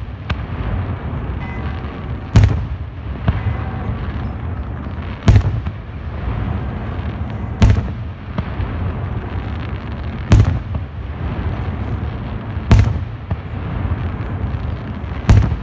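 Fireworks display: six loud aerial shell booms, evenly spaced about two and a half seconds apart, over a steady din from the display between them.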